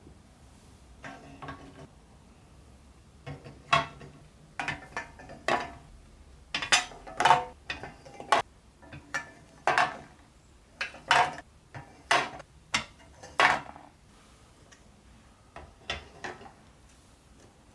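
Metal parts of a pressed-steel toy truck clinking and knocking as they are handled and fitted together: a run of irregular sharp clicks with a slight ring, busiest in the middle, quieter near the start and end.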